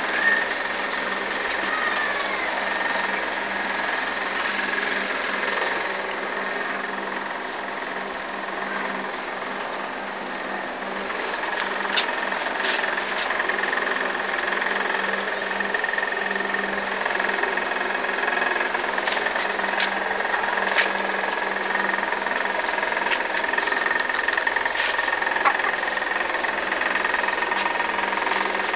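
Steady machine hum with a constant high whine, and a few scattered sharp clicks.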